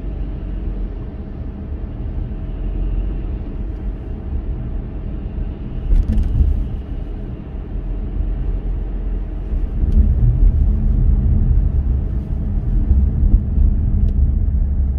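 A car driving: a steady low rumble of engine and tyre noise that swells about six seconds in and again from about ten seconds on, with a few faint clicks.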